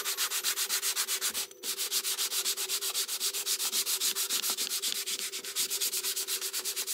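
A small brush scrubbed rapidly back and forth over freshly CNC-milled thin beech plywood, about seven strokes a second, clearing dust and fuzz from the cut reindeer shapes. The strokes break off briefly about one and a half seconds in.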